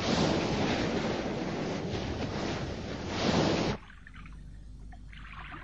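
Cartoon stormy-sea sound effect: a steady rush of crashing waves and wind that surges once, then cuts off suddenly about two-thirds of the way through, leaving only faint, quiet background sound.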